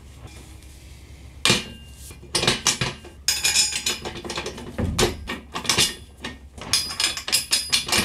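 Steel square tube and flat steel plates knocking and clanking against a steel frame as they are handled and set in place. A string of sharp metallic knocks starts about a second and a half in.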